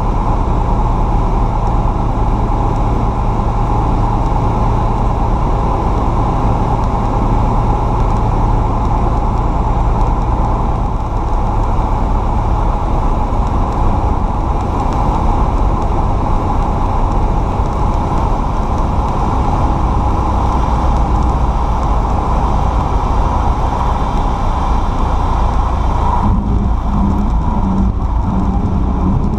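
Cockpit noise of a Cessna 172D in flight: the propeller-driven Continental O-300 six-cylinder engine drones steadily over airflow noise. The engine note shifts about a third of the way in, and the noise eases and changes near the end as the plane comes down low over a grass field.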